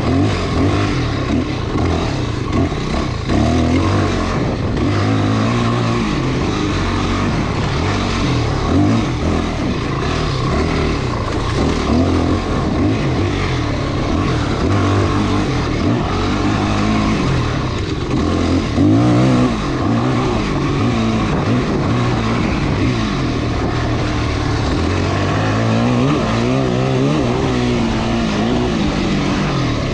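Off-road motorcycle engine running on a dirt trail, its pitch rising and falling again and again as the throttle is opened and closed.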